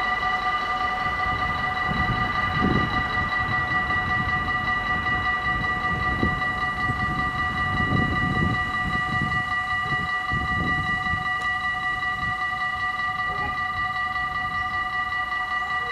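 Dutch level-crossing warning bells ringing without a break, a steady high ringing made of several tones, as the crossing's half-barriers lower and stay down. Irregular low rumbles sound underneath.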